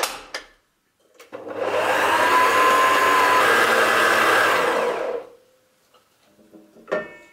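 Electric stand mixer motor running for about four seconds and then switched off, stirring yeast and sugar into lukewarm water in its steel bowl to dissolve the yeast. A short click at the start and a brief clatter near the end.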